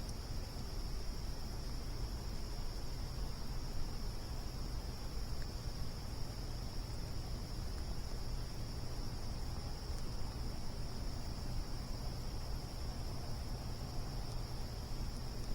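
Steady chorus of crickets, a constant high trill, over a low rumble, with a faint click or two.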